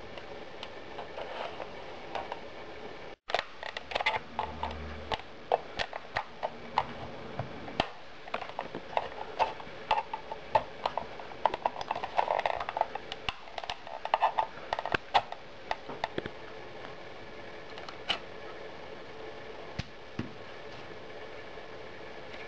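Dense, irregular plastic clicks and creaks as a cordless phone's hard plastic housing is pried open at its seam with a small screwdriver. The clicking thins to a few isolated ticks in the last several seconds.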